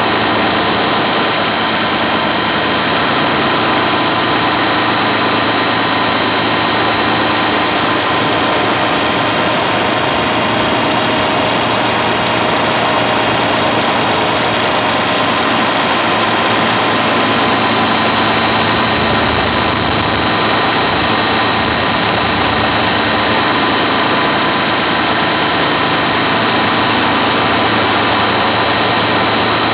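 Model helicopter running steadily with a loud, high-pitched whine that holds an almost constant pitch.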